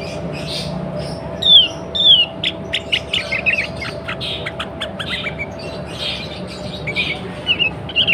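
Sooty-headed bulbul calling: two loud downward-sliding whistled notes, then a quick run of short sharp chirps, with a few more notes near the end. It is a lure call offered as a female in breeding condition, used to set males singing.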